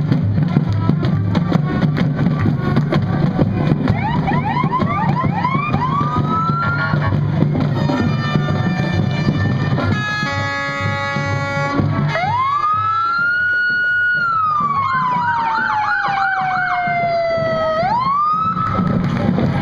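Electronic sirens on slow-moving emergency vehicles: short rising yelps first, then a steady horn blast about ten seconds in. After that comes a long wail that climbs, then slowly falls, with quicker yelps sounding over it and another rise near the end. Music with a low beat runs underneath in the first half.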